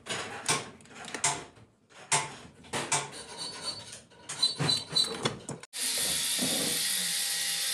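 Metal clinks and scraping from a spanner and hands working on the shafts and linkages of a cast-iron sewing machine head, in short irregular bursts. About two-thirds of the way through, this cuts off suddenly and a steady hiss takes over.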